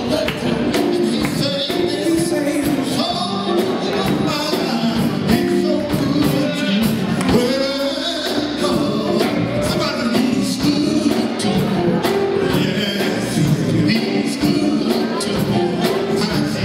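Live band playing: male voices singing over electric guitar and bass guitar, heard from the audience.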